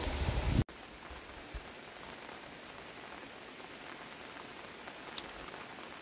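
Wind rushing over the microphone for the first moment, then after a sudden cut a steady soft hiss of light rain falling on a wet lane and foliage, with a few faint drips.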